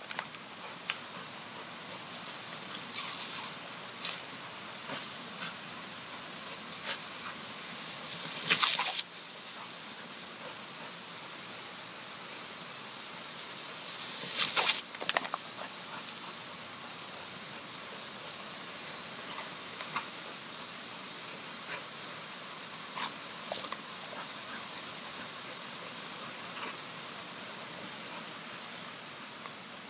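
Garden hose spray hissing steadily, with a few short, louder rushes of spray, the loudest about nine and fifteen seconds in.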